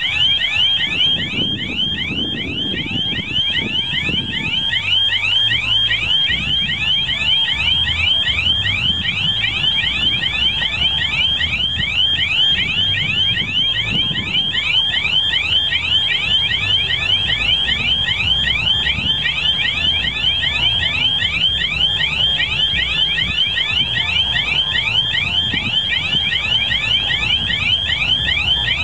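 Electronic warning signal beeping rapidly and evenly without a break, with the low running of an approaching TEM2 diesel shunting locomotive underneath it.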